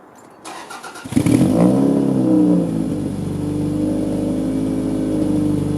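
Toyota Celica four-cylinder engine started: a brief crank, then it catches about a second in with a short flare of revs and settles into a steady idle. The exhaust's catalytic converter leak has just been repaired.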